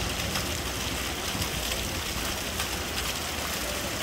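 Rainwater gushing from a drainpipe spout and splashing onto paving tiles in heavy rain: a steady rush of water with a low rumble underneath.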